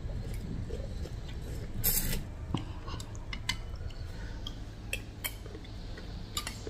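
Metal spoon and fork clinking now and then against a ceramic soup bowl while eating, with a short, louder slurp about two seconds in.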